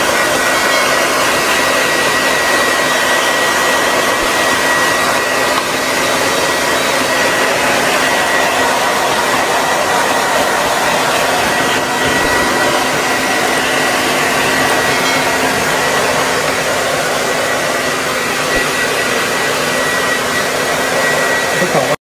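Handheld hair dryer blowing steadily on a dog's coat, a constant rushing of air with a thin steady whine on top.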